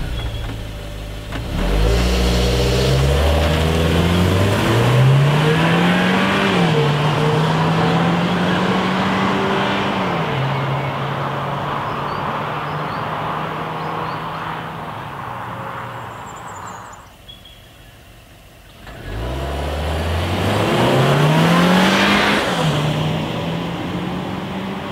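2015 Holden Trax's 1.4-litre turbo four-cylinder revving up under hard acceleration, heard from outside as the car pulls away. Its pitch climbs and drops back at automatic upshifts about six and ten seconds in, then fades with distance. After a brief lull near the end, the engine climbs again through another upshift.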